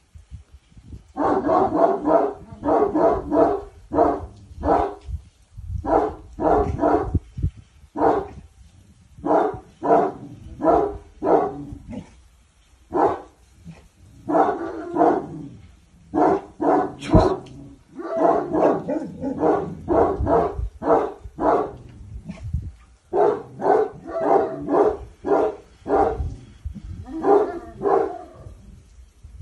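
A Cane Corso barking over and over, in quick runs of several deep barks separated by short pauses.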